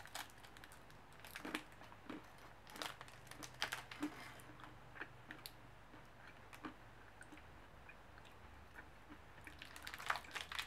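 Crunchy all-nut bar being bitten and chewed: faint, irregular crunches, most of them in the first five seconds or so.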